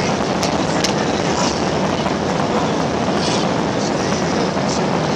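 Steady jet engine and rolling noise heard inside an airliner's cabin as the plane moves along the runway, with a few brief high clicks over it.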